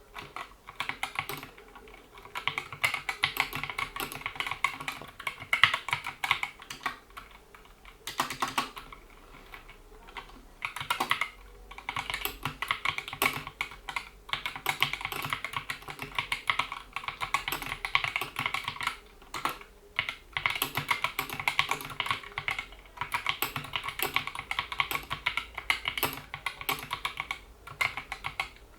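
Typing on a GK61 mechanical keyboard with Gateron optical switches, PBT keycaps and rubber dampening rings under the keys. The key presses come in fast, steady runs, broken by brief pauses a few times.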